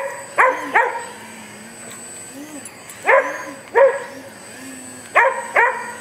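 A dog barking sharply at a hovering electric RC plane, seven barks in three quick groups: three at the start, two about three seconds in, two just after five seconds. Under the barks the plane's brushless motor and propeller hum steadily, the pitch wavering up and down as the throttle is worked to hold the hover.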